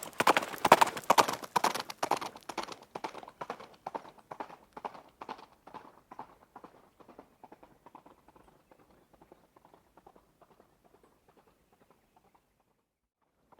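Hoofbeats of a running horse: a fast, dense clatter, loud at first, that fades away steadily until it is nearly silent about twelve seconds in.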